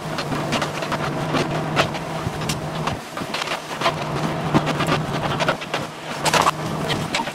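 Mini excavator's diesel engine running steadily while its arm and bucket break into a brick house, with irregular cracks and crashes of splintering wood and falling debris, the loudest crash about six seconds in.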